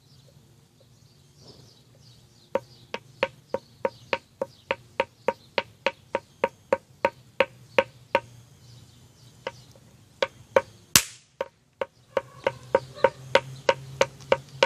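A fast, even series of hard knocks, about three or four a second, with a slight pitch to each; it pauses, then resumes. About eleven seconds in comes one single sharp crack, much brighter than the knocks.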